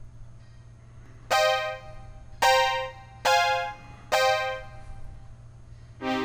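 Analog synthesizer playing four separate notes with a bright tone rich in overtones. Each starts abruptly and fades out over about half a second: a long release setting on the envelope, so the sound persists after the key is let go.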